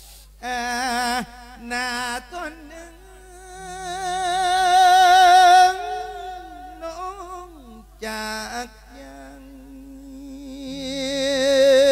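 A monk's voice chanting an Isan-style lae, a sung funeral sermon: long held, drawn-out notes with a heavy, even vibrato. The longest note swells to its loudest about five seconds in, and another long note builds toward the end.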